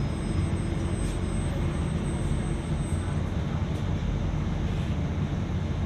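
City bus in motion: a steady low engine and road rumble.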